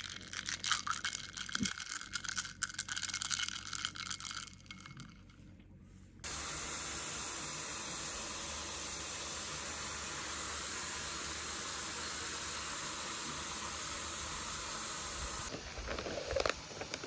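Ice cubes clinking and rattling in a glass as an iced drink is stirred with a straw: a quick run of light clicks for about six seconds. Then it cuts to a steady, even hiss.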